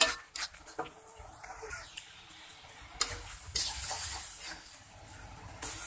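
Spatula scraping and clicking against a wok as corn-cob mushrooms are stir-fried in the liquid they have given off, with a steady sizzling hiss from about three seconds in.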